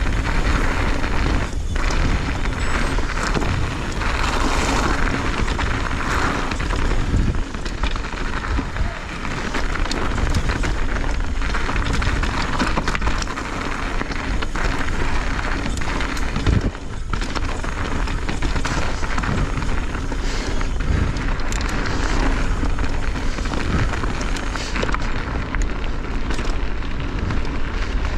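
Pivot Firebird full-suspension mountain bike descending a dirt trail at speed: a steady rush of tyres on dirt and wind on the microphone, with frequent knocks and rattles from the bike over bumps.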